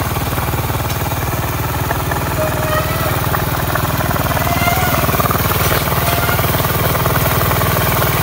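Small single-cylinder motorcycle engine running steadily at idle while it drives a belt-driven piston air-compressor pump mounted on the bike, with a rapid, even pulse.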